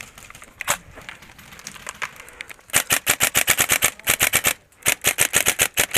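Airsoft gun firing in three rapid full-auto bursts, the longest over a second, with a single shot a few seconds before them.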